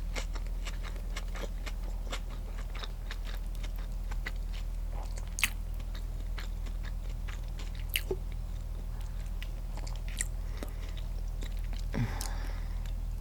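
Close-miked chewing of a turkey and cheese sandwich on sourdough bread: a run of small wet mouth clicks with a few sharper snaps, over a steady low hum.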